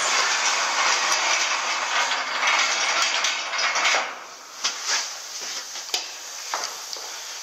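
A steady rush of air noise that stops about four seconds in, followed by a few sharp knocks and clanks of metal.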